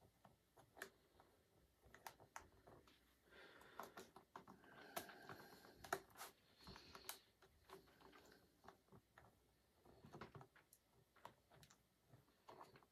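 Faint scattered clicks and light scraping of a small screwdriver turning a battery screw into an early 2015 MacBook Air, with fingers handling the battery; the screw is just catching its thread and going in.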